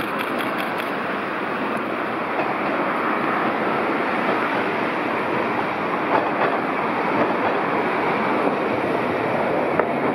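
Toyohashi Railway Mo 780 streetcar running on street track and passing beneath, heard as a steady noisy wash of wheels on rail mixed with road traffic. A few light clicks come about a second in.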